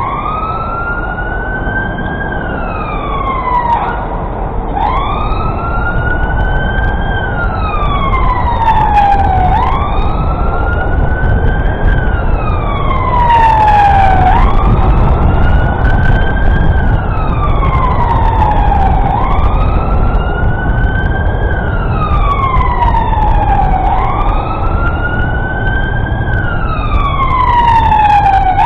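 Emergency vehicle siren on a slow wail, rising and falling in pitch about every five seconds, over steady traffic noise; it grows louder through the first half.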